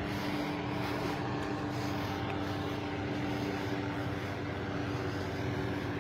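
Steady drone of a helicopter overhead, an even engine hum with no change in pitch or level.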